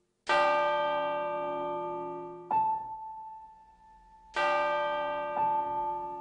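Slow, sparse piano music: a chord struck and left to ring out, then a single high note about two seconds later, with the pattern repeating once.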